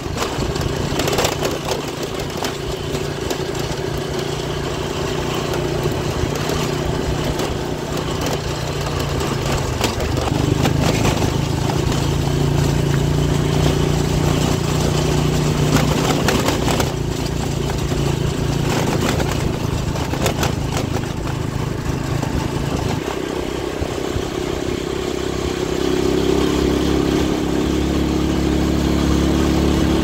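Motorcycle engine running while being ridden, its revs rising and falling, with the pitch climbing again near the end.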